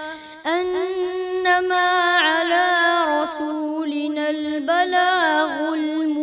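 A boy's solo voice reciting the Quran in melodic tajweed chant, drawing out the syllables in long held notes with wavering ornaments and taking a short breath about half a second in.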